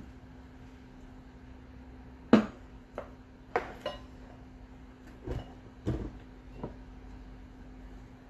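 A series of knocks and clinks as a glass mixing bowl and other kitchen items are set down and moved on a wooden table. The loudest knock comes a little over two seconds in, followed by about half a dozen lighter ones, over a faint steady hum.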